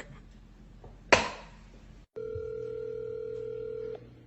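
A sharp knock about a second in, then a single steady electronic telephone ring tone lasting about two seconds that stops abruptly.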